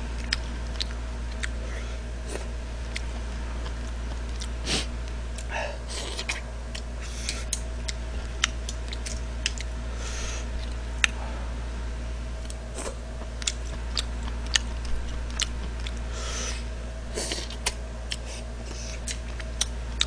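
Eating noises: disposable wooden chopsticks clicking against a bowl of noodle soup many times, with several short slurps and chewing of noodles, over a steady low hum.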